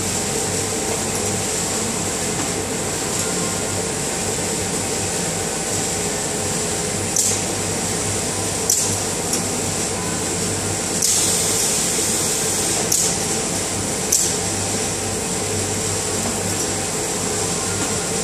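Pick-and-place machine running: a steady hum from the Ezi-Servo axes and conveyor, broken by short sharp hisses of compressed air from the pneumatic suction-cup gripper's valves as it picks and places cards. About five hisses come from seven seconds in, one of them lasting over a second.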